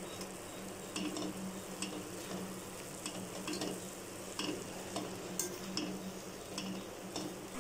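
Perforated metal spatula stirring and tossing vermicelli in an aluminium kadai, clinking and scraping against the pan about twice a second, over a low steady hum.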